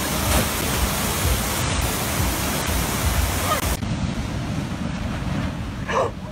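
Loud, steady rush of water from a FlowRider surf-simulator wave. After a cut about four seconds in, ocean surf washing up on a beach with wind on the microphone, and a brief voice near the end as a wave breaks over a person.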